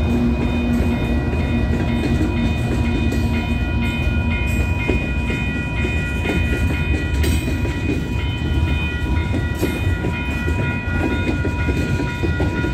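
Freight train passing a level crossing: a Canadian Pacific diesel locomotive's engine drone fades about four seconds in, then covered hopper cars rumble and clatter over the rails. The crossing signal's bell rings steadily throughout.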